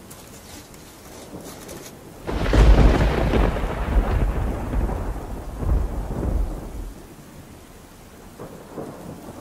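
A clap of thunder breaks out about two seconds in and rumbles for several seconds before fading, over steady rain.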